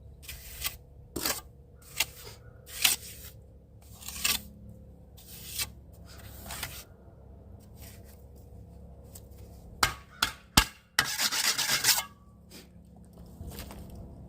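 A series of short scraping or rubbing strokes, roughly one a second, then two sharp clicks and a longer, louder scrape near the end.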